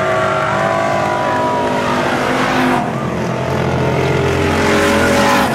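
Dirt-track stock cars racing, several engines running at once. One engine note falls over the first two seconds, then an engine rises in pitch and gets louder as a car passes close about five seconds in.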